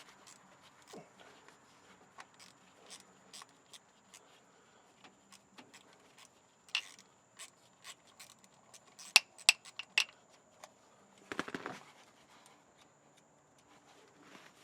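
Light, scattered metal clicks and scrapes of a 10 mm hand tool working the small nut off the starter solenoid's trigger-wire terminal, with a cluster of sharper clicks about nine to ten seconds in and a brief rustle near twelve seconds.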